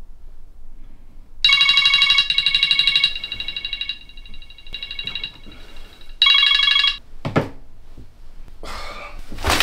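Phone alarm going off with a trilling, bell-like ringtone in two loud bursts. It stops abruptly about seven seconds in, as it is switched off. Bedding rustles near the end as the sleeper stirs.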